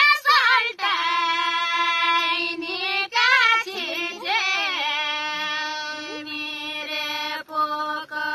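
A high female voice singing a Nepali folk melody unaccompanied, holding long notes with quick ornamental turns between them.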